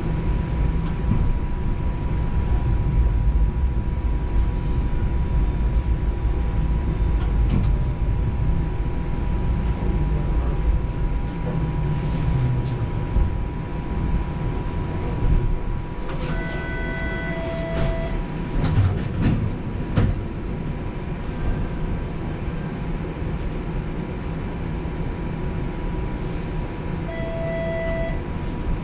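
A TTC Flexity Outlook streetcar running on rails, heard from inside the car: a steady rumble with a faint electric whine and scattered rail clicks. The rumble eases about halfway through. A short two-note electronic chime sounds about halfway through and again near the end.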